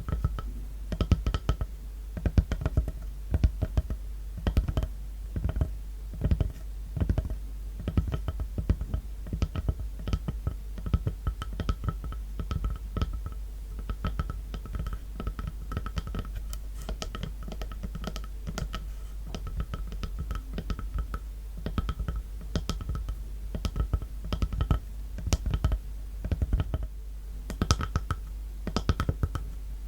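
Tapping on a wooden log: quick, irregular taps in clusters, each leaving a short, hollow ringing tone.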